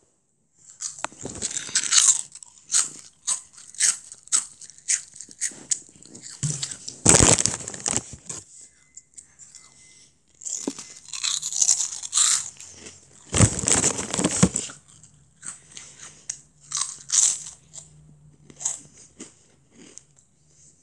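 Close, irregular crunching and crinkling with many short crackles, and two louder, longer bursts about seven and thirteen seconds in.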